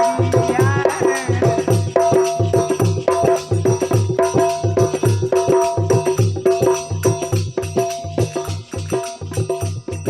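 Instrumental interlude of a folk bhajan: a tambura drone holds steady under a regular drum beat and jingling rattle-type percussion, with no singing.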